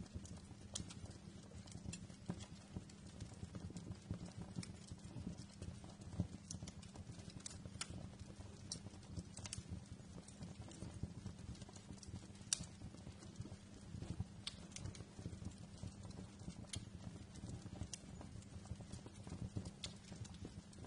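Wood fire crackling in a fireplace: irregular sharp pops and snaps over a steady low rumble of the flames, with one louder pop about twelve seconds in.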